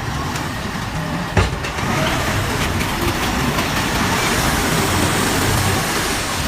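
Self-loading concrete mixer's engine running steadily, with one sharp knock about a second and a half in.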